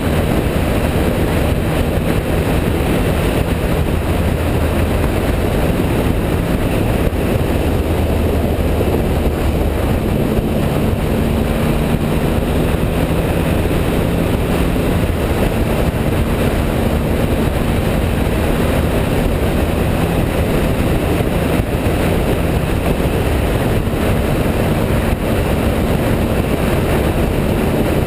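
2011 Triumph Speed Triple's 1050 cc inline three-cylinder engine running at a steady cruise on the open road, under heavy wind rush over the microphone.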